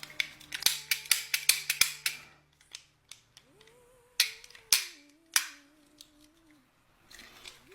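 A quick run of sharp clicks, then three louder clicks about half a second apart: the plastic parts of an airsoft gun being worked by hand.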